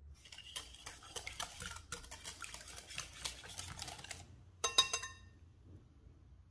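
A kitchen utensil rattling and scraping quickly against a mixing bowl for about four seconds, then a single ringing clink of metal or glass.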